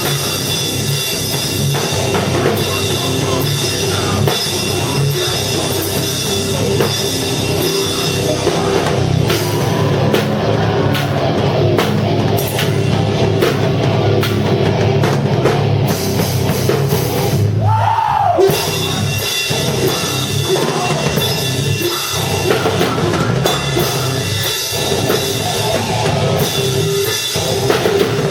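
Rock band playing live, with a drum kit keeping a steady beat under the other instruments.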